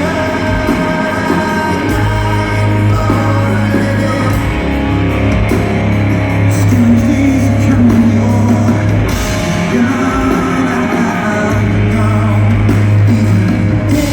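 Live rock band playing loudly, with guitars, a heavy steady bass and a lead vocal singing over them.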